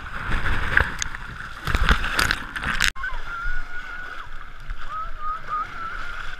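Small sea waves washing and sloshing right at the microphone, with splashes, for about three seconds; after an abrupt cut the water goes on more gently under distant high voices from the beach.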